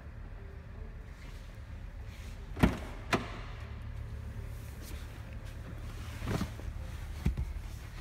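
Four sharp knocks or bumps, the loudest about two and a half seconds in, over a steady low hum.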